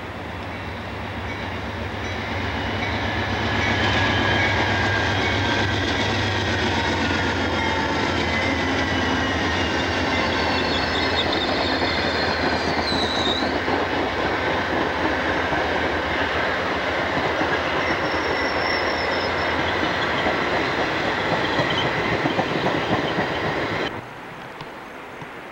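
Amtrak passenger train led by a GE Genesis diesel locomotive passing close by. The engine's low hum builds over the first few seconds, then gives way to a steady loud rumble and clatter of the passenger cars over the rails, with thin high wheel squeals. The sound cuts off suddenly near the end.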